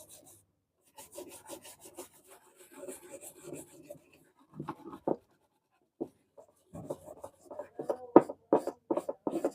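Scrubbing the car stereo's circuit board with thinner to clean it after resoldering: irregular short rubbing, scratching strokes, coming faster and louder in the last few seconds.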